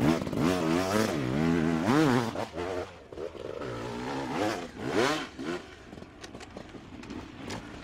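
Enduro motorcycle engine revving up and down repeatedly as the throttle is worked, loudest in the first few seconds, with another surge of revs about five seconds in before it drops back.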